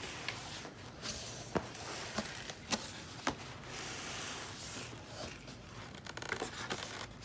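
Packaging being handled during an unboxing: rustling and scraping, with several sharp taps spread through the middle.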